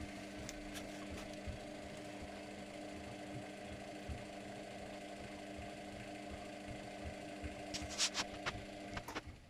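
Luxor WM 1042 washing machine's motor turning the empty drum during a wash phase: a steady hum with soft irregular knocks underneath. A few sharp clicks come near the end, and the motor stops just before it closes.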